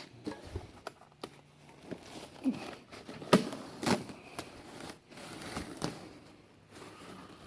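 Irregular handling noises: crinkling and rustling with a few sharp clicks and knocks, loudest about three and four seconds in.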